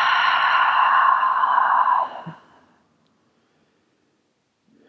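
A woman's long, audible sighing exhale, a deliberate releasing breath to let tension go. It trails off and stops about two seconds in.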